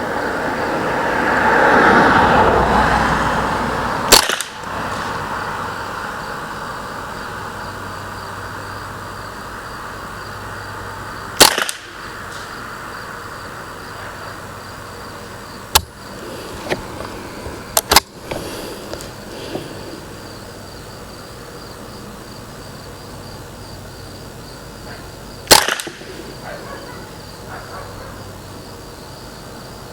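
Ruger 10/22 Target rifle firing CCI Standard Velocity .22 LR, about five single shots spaced several seconds apart as fouling rounds before a scored group. A rising and falling rush of noise comes in the first few seconds, before the first shot.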